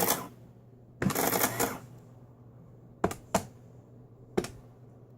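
Keys being pressed to type in a total amount on a checkout keypad: a few sharp clicks, two close together about three seconds in and one more a second later, after two short bursts of rustling handling noise.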